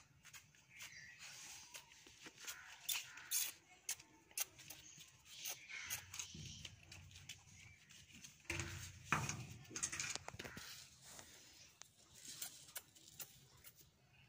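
A dog nosing and pushing at the bottom of a corrugated metal gate: irregular clicks, scrapes and rustles, with a louder scuffle a little past halfway.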